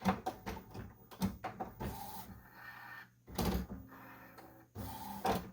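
Epson WorkForce WF-7720 inkjet printer's mechanism clicking and clattering, with two louder whirring runs near the middle and the end, as it works through its power-on start-up cycle.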